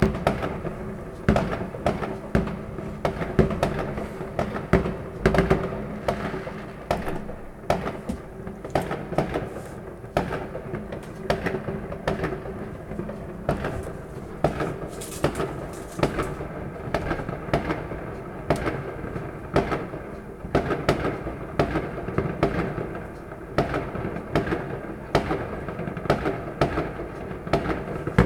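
Fireworks and firecrackers going off: a dense, irregular string of bangs and pops, several a second.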